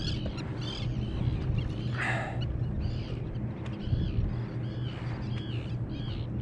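Birds calling over the water: many short, arched high calls repeated about twice a second over a steady low hum, with a brief rush of noise about two seconds in.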